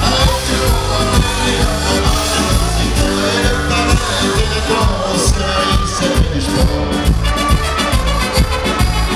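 Live band music with brass (trumpets, trombone, saxophone), drums and electric bass over a steady beat, with a man singing into a microphone.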